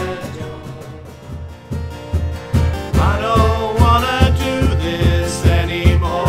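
Adult staff choir singing a song with instrumental accompaniment. The music dips quieter at first, then a steady low beat comes in about two seconds in, and the voices enter about a second later.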